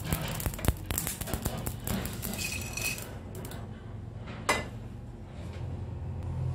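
Whole coriander and cumin seeds, black peppercorns and dried red chilies being dry-roasted in a nonstick pan and stirred with a spatula: a dense rattle, scraping and crackle of seeds for about three seconds. Then a single sharp click about four and a half seconds in, and a low steady hum near the end.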